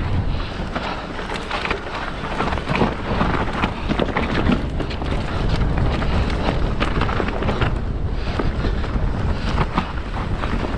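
Mountain bike riding down a rough trail: wind rushing over the microphone with constant rolling noise and frequent short knocks and rattles from the bike over rough ground.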